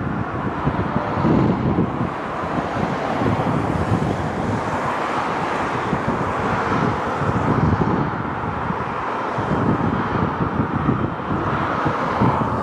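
Boeing 777 freighter's GE90 jet engines running at low taxi thrust as the aircraft turns on the runway, a steady jet whine and rush, with wind buffeting the microphone in gusts.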